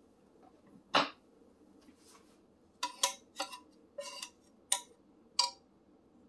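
Metal cooking utensils clinking against cookware: one sharp clink about a second in, then a run of about seven quick clinks and rattles with a brief ring.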